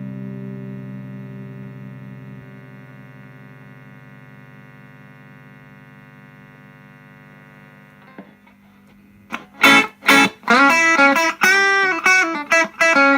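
Electric guitar played through an Ibanez Tube Screamer Mini overdrive pedal. A chord rings out and slowly fades for about eight seconds, then about nine and a half seconds in a riff of short, choppy picked notes and chords starts.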